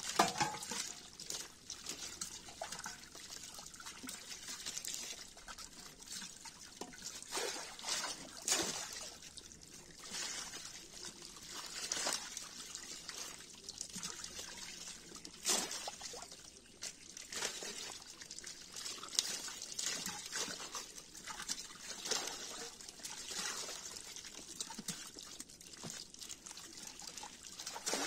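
Shallow pond water splashing and trickling in an irregular patter as hands scoop small fish out of a gathered seine net and drop them into plastic basins, with a few louder splashes.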